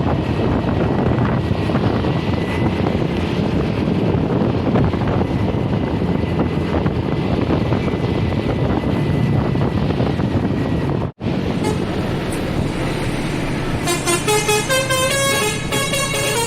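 Steady rumble of a vehicle on the road, broken by a brief dropout about eleven seconds in. Near the end a bus's Basuri musical horn plays a tune of stepping notes.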